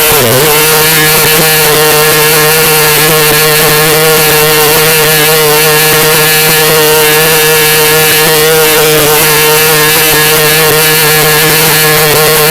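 Glitched AI text-to-speech voice of Plankton stuck on a single loud, buzzing tone, held at one pitch without a break.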